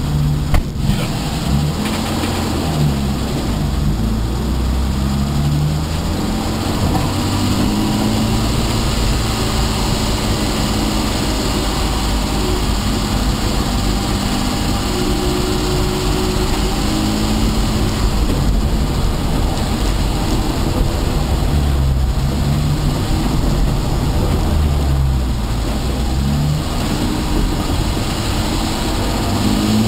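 Saloon race car's engine heard from inside the cabin, its revs rising and falling at low speed as the car makes its way across the runoff back toward the track after sliding off.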